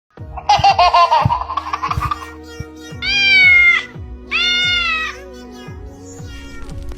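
A cat meowing over background music with a steady beat: a wavering call in the first couple of seconds, then two long, drawn-out meows about a second apart.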